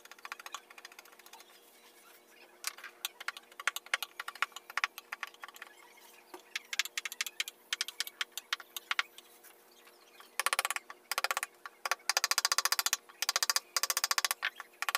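Hand carving chisel cutting into a wooden panel: irregular clicks and taps as the blade bites and chips lift. About ten seconds in, it changes to dense runs of rapid ticking from quick repeated cuts.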